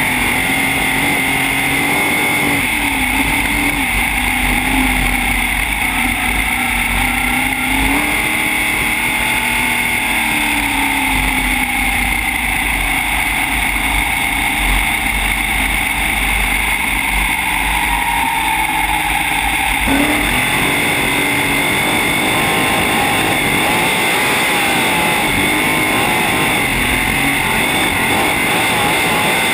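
Sprintcar's V8 engine heard on board at racing speed, its pitch rising and falling as the throttle comes on and off, with an abrupt change in the sound about twenty seconds in.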